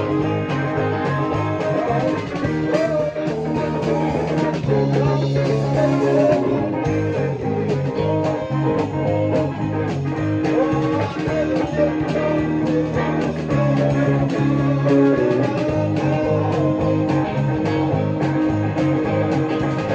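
Electric bass played fingerstyle in a full band rehearsal, with guitar and a steady beat of drum hits.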